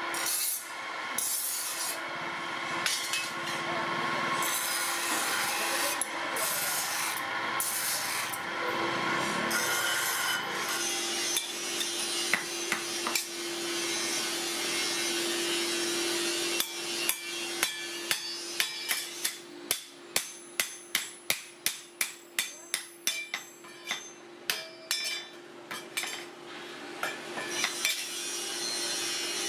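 Bench grinder's abrasive wheel grinding a steel trowel blade, a dense rasping sound over the steady hum of the motor. Later a small hammer strikes a steel trowel on an anvil block in a quick series of sharp knocks, about two a second.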